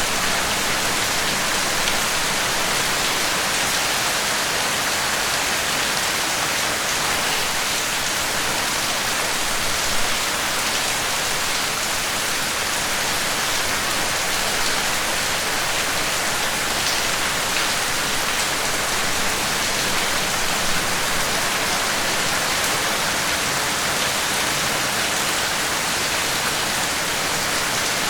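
Steady rain falling, a continuous even hiss with a few faint drop ticks, one slightly louder about ten seconds in.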